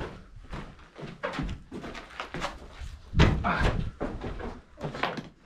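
Footsteps and scuffs on the rocky floor of a narrow rock tunnel: an irregular run of knocks and scrapes, the loudest about three seconds in.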